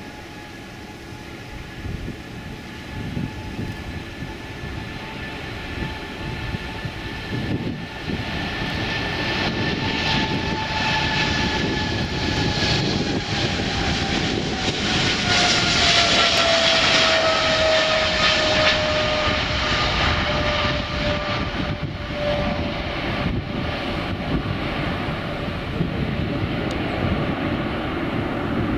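Boeing 777-300ER's twin GE90-115B turbofan engines at takeoff thrust, the jet roar growing louder as the airliner rolls down the runway and climbs out, loudest about halfway through. A whining fan tone drops in pitch as the aircraft passes.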